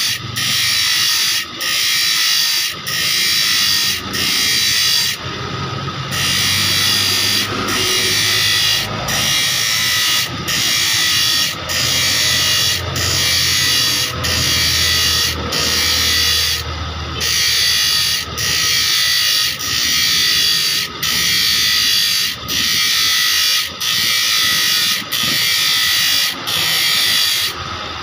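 A small motor-driven grinding wheel grinding a steel saw blade to put a new edge on it. The blade is drawn across the wheel in repeated passes, roughly one every 1.3 seconds, each a loud harsh grinding hiss with brief dips between, over the motor's steady hum.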